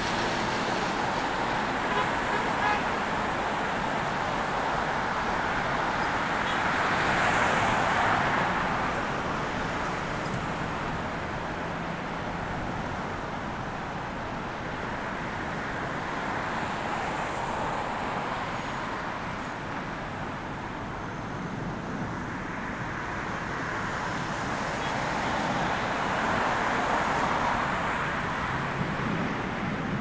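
City road traffic going past a bicycle: a steady wash of tyre and engine noise, with vehicles swelling past about eight seconds in and again near the end. A couple of short sharp knocks come just before the midpoint.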